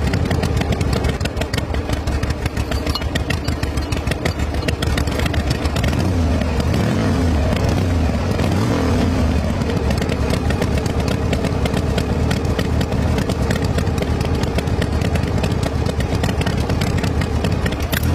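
Small engine running steadily with a fast chugging beat and a low hum.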